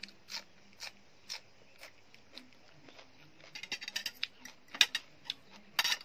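Close-up chewing of crunchy food, about two crunches a second. In the second half, a metal spoon clinks and scrapes against a plate, louder and faster.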